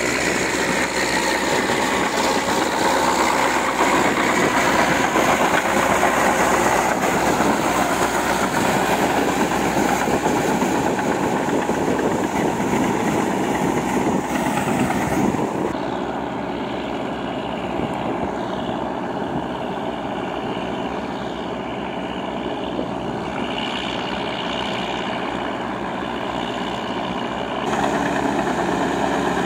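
Tractor engines running steadily under load while working a paddy field. The sound drops a little and turns duller about halfway through, then comes back up near the end.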